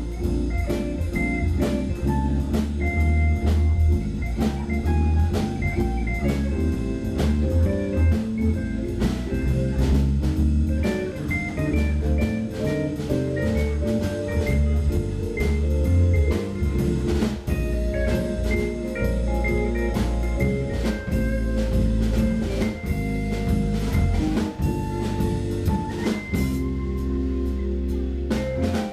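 Live jazz-fusion band playing: electric bass, semi-hollow electric guitar, keyboard and drum kit, with held melody notes over a busy bass line and steady drumming. The drums drop out briefly near the end.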